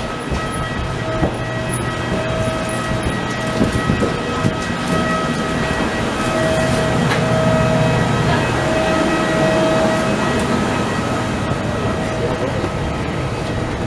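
Steady ventilation hum with a whine from an Airbus A321 parked at the gate during boarding, and a faint murmur of voices.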